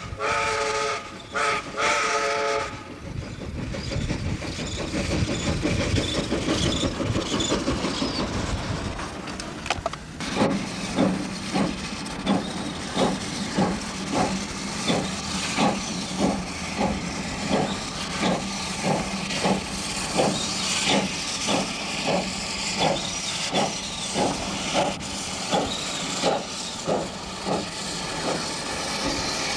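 Baldwin steam locomotive: short blasts of its steam whistle in the first few seconds, then steam hissing, then from about ten seconds in the slow, even exhaust beats of the engine working, about three every two seconds.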